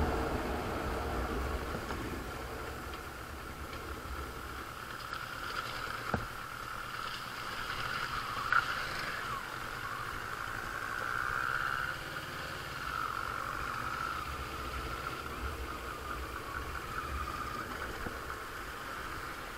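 Kawasaki Versys 650's parallel-twin engine running at low speed as the motorcycle rolls over a rough, broken road, with a louder low rumble in the first couple of seconds that eases off. Two short sharp clicks about six and eight and a half seconds in.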